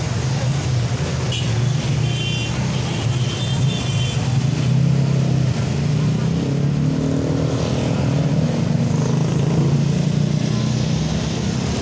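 Busy street traffic: motorcycles and cars passing close by, their engines giving a steady hum, with people talking in the background.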